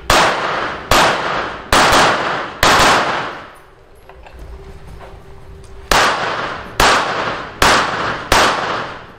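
Pistol shots: eight loud reports in two strings of four, about a second apart, with a pause of about three seconds between the strings. Each shot rings out in a short echoing tail.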